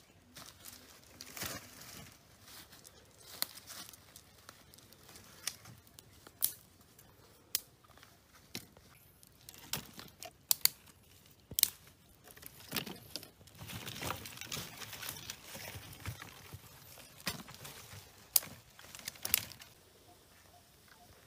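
Dry sticks and twigs being handled over a campfire pit: scattered sharp clicks and knocks as wood touches wood, with rustling of dry leaves and brush.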